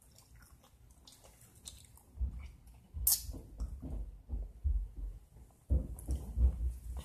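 Faint eating noises and small clicks, then from about two seconds in a run of uneven low thumps and bumps close to the microphone, with one sharp click about three seconds in.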